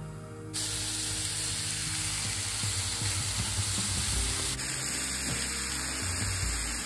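Diced raw steak sizzling on a hot cast-iron griddle: a steady frying hiss that starts abruptly about half a second in.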